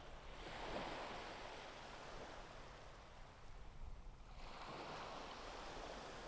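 Faint ocean surf: two waves washing in, each a hiss that swells and fades, about four seconds apart.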